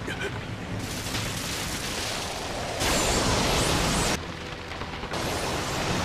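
Anime fight sound effect of a massive blast: a continuous rushing roar that jumps louder about three seconds in, cuts down abruptly a second later and picks up again near the end.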